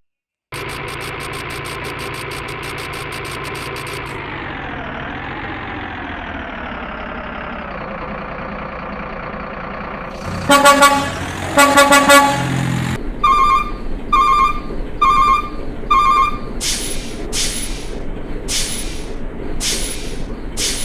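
Truck engine and horn sounds. A steady engine hum with fast ticking winds down in pitch, then two loud horn blasts are followed by a run of short, evenly spaced beeps and a few longer honks.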